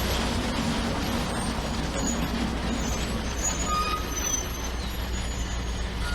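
Heavy diesel construction equipment running steadily, a continuous low engine rumble.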